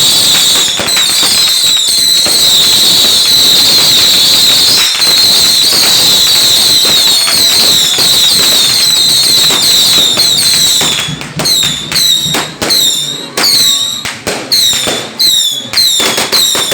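Whistling fireworks going off: a rapid, unbroken stream of short falling whistles with sharp cracks among them. About two-thirds of the way through, the stream breaks up into separate whistles with short gaps between them.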